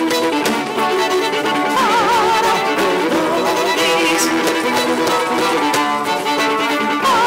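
Live violin playing a slow melody with wide vibrato on its held notes, over sustained accompanying notes from the rest of the ensemble.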